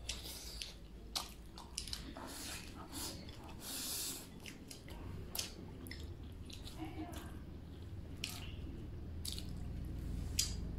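A man eating from a bowl with chopsticks: close chewing and mouth sounds, with scattered short clicks of the chopsticks against the porcelain bowl.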